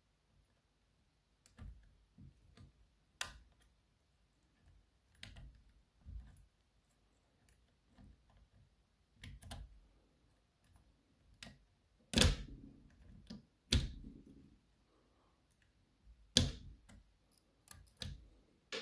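Small screwdriver and bent steel pry tool clicking and scraping against the C-clip at the back of a DOM Sigma euro cylinder lock, while trying to get the clip off. The sharp metal clicks come irregularly, and the loudest fall in a cluster past the middle.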